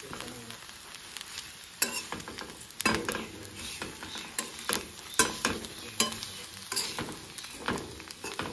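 Flat metal spatula scraping and tossing a dry, flaky mixture around a metal pan, in irregular strokes about one or two a second, over a steady frying hiss.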